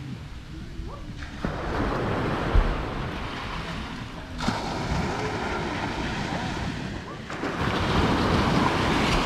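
Small sea waves breaking on a sandy beach and washing up the shore. The surf swells twice, about a second and a half in and again near the end.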